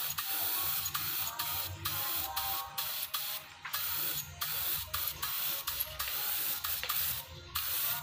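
Gravity-feed spray gun hissing as it sprays a wood colour onto a door, the hiss stopping briefly again and again between strokes.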